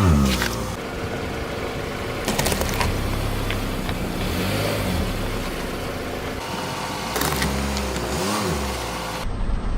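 A car engine running, its pitch rising and falling twice, with a few short sharp cracks of objects being crushed under the tyres.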